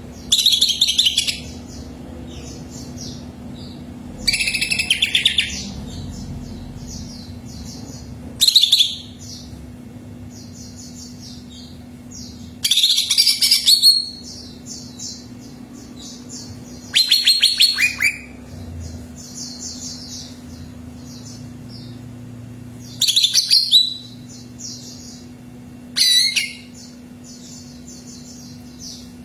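Cucak ijo (green leafbird) song: seven loud, rapid phrases of about a second each, a few seconds apart, with softer steady twittering between them. A faint low hum runs underneath.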